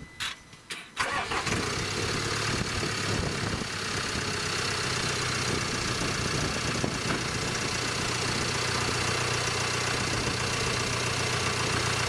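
Land Rover Discovery Sport engine starting after a few short clicks, catching about a second in, then idling steadily.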